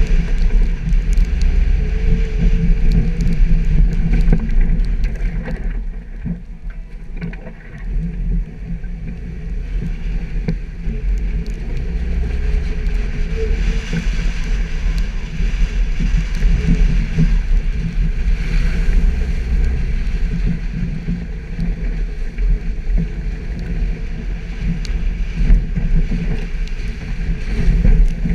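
Suzuki Jimny engine running steadily as the vehicle drives off-road, easing off briefly about a quarter of the way through.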